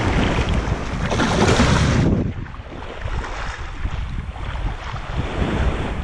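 Wind rumbling on the microphone over shallow surf, with water washing. A loud hissing rush fills the first two seconds, then eases suddenly to a low rumble.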